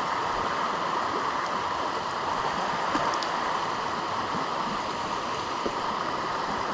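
Mountain river water rushing steadily over rocks in a shallow riffle.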